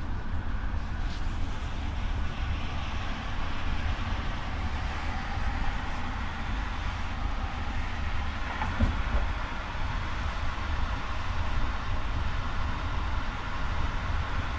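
Steady cabin noise of a coach at motorway speed, heard from inside: a low rumble of engine and tyres on the road with a hiss of road and wind noise, and a brief knock about nine seconds in.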